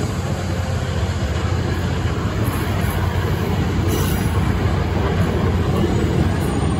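Union Pacific passenger cars rolling past close by: a steady, loud rumble of steel wheels on the rails.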